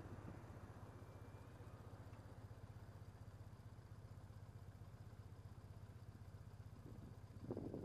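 Motorcycle engine idling at a standstill: a faint, low, steady hum. A louder rush of noise comes in near the end.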